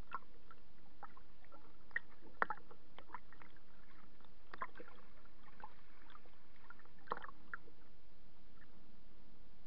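Small choppy waves lapping and splashing against a kayak's hull, in scattered irregular small splashes, the loudest about two and a half seconds in.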